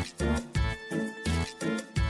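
Upbeat background music with a steady, bouncy beat of about three strong bass notes a second.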